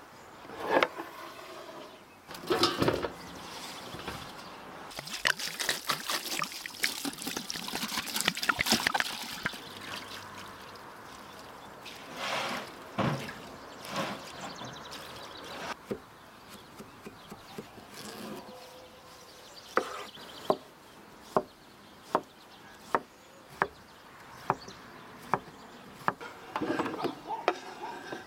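Water poured from a clay jug into a metal basin to rinse vegetables, then a knife chopping cucumber on a wooden board in steady strokes, about one cut every three-quarters of a second.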